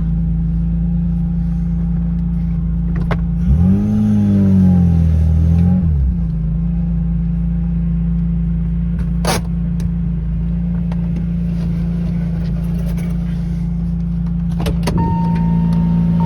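BMW S54 inline-six engine in a 1991 E30 M3 idling steadily, with one brief rev that rises and falls about four seconds in. It is running on a freshly replaced main fuel pump that no longer leaks fuel.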